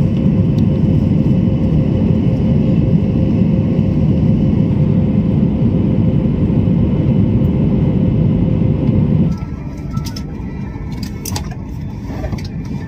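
Steady loud rush of jet engines and airflow inside the cabin of a flydubai Boeing 737 climbing after takeoff, with a faint steady hum in it. About nine seconds in it gives way to a quieter cabin hum with several clicks and knocks as luggage is stowed in an overhead bin.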